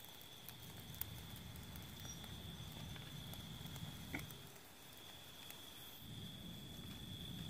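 Night insects chirring in one unbroken high tone, over a low rumble, with a few sharp clicks at about one second and about four seconds in.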